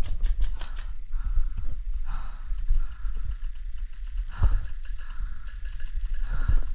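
Airsoft guns firing in rapid bursts of sharp ticks, near the start, through the middle and near the end, with a few dull thumps of movement and a low rumble on the microphone.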